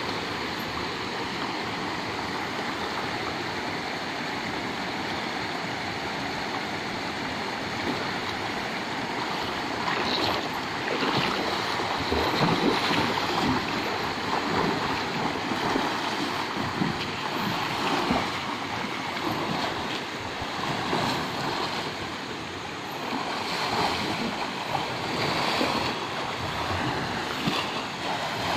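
Steady rush of a flowing river over a shallow bed, with irregular splashing of people bathing in the water from about ten seconds in.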